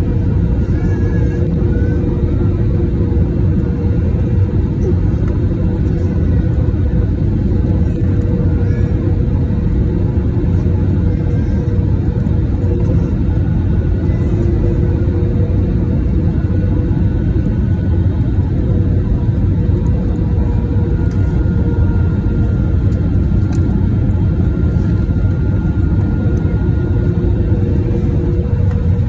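Airliner cabin noise on final approach: a loud, steady rumble of the jet engines and rushing air, with faint steady whining tones above it.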